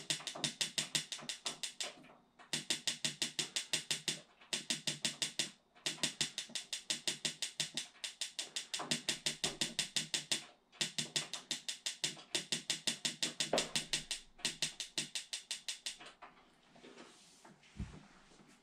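Mr. Heater Buddy Flex propane heater's lighting control ticking rapidly and evenly, about seven clicks a second, in several runs with short breaks, as it is tried again and again but does not light. A low thump comes near the end.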